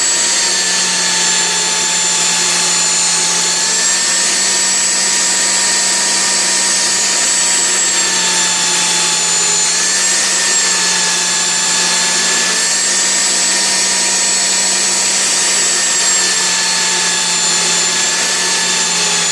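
Cheap small belt sander running steadily with a high whine, grinding down the worn rails of a chainsaw bar that has been binding in the cut. The whine dips slightly in pitch several times as the bar is pressed against the belt.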